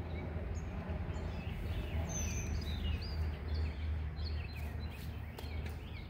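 Wild birds chirping and singing in short, repeated high phrases, with several calls overlapping, over a steady low rumble.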